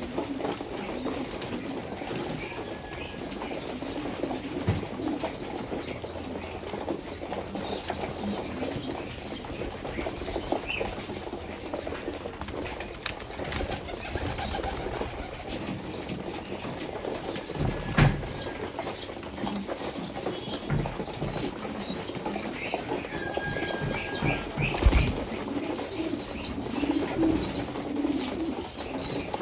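A flock of birds calling, with short high chirps repeating throughout over lower calls, and a couple of louder knocks about 18 and 25 seconds in.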